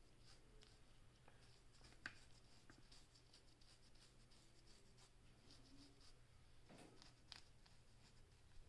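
Faint scratching of a fine-toothed comb raking through short hair and across a flaky, dandruff-covered scalp: a run of soft, quick scrapes with a sharper click about two seconds in.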